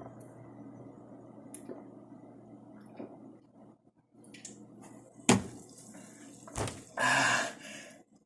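Drinking sparkling water from an aluminium can: liquid and swallowing sounds, and a sharp knock of the can about five seconds in. A short loud rush of noise follows near the end.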